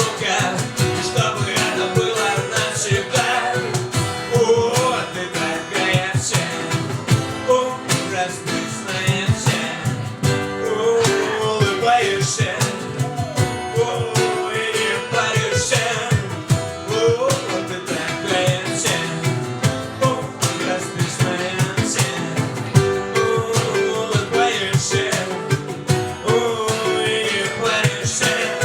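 Live band music: an instrumental passage driven by acoustic guitar, with a steady rhythm underneath.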